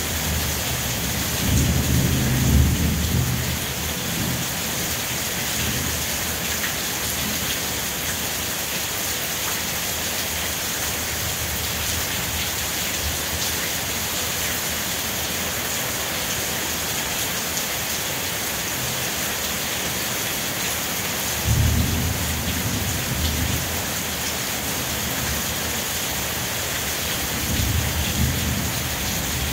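Steady rain falling, a constant even hiss, with three brief low rumbles: one near the start, one with a sudden onset about three quarters of the way in, and one near the end.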